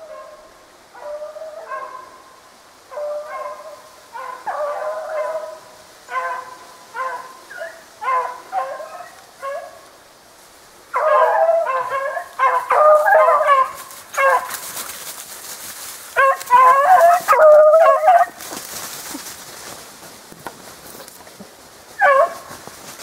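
A pack of beagles baying on the track of a snowshoe hare: repeated drawn-out howling bays, several dogs overlapping, growing loudest about halfway through as the pack passes close. A rustling hiss joins in the second half.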